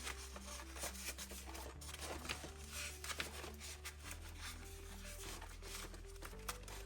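Soft background music with held low notes that change every second or two, under faint rubbing and rustling as servo wires are pushed around inside a small foam model plane.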